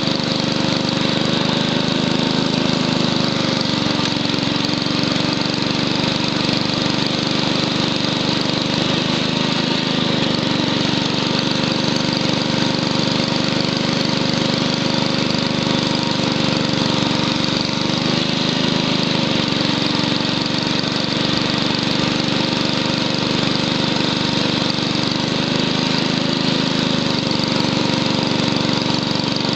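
A 1967 Wheel Horse Lawn Ranger's 6 hp Tecumseh single-cylinder engine running steadily under load, driving the STR-324 snowthrower as it throws snow. The engine note dips briefly about every eight seconds.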